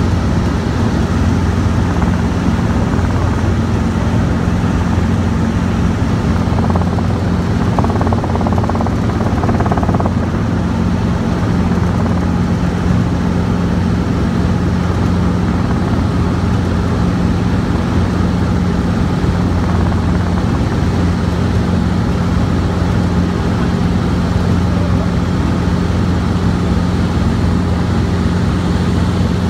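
Robinson R22 helicopter in cruise flight, heard from on board: a loud, steady drone of engine and rotors with a low hum that holds one pitch.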